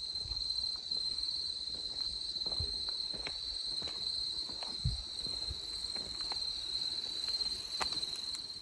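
Insects trilling in one steady, high-pitched note, with a few faint clicks and soft low knocks scattered through it.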